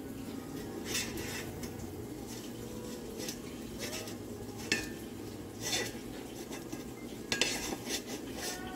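Silicone spatula spreading oil around a metal cake pan, scraping and knocking against the pan in short, irregular strokes.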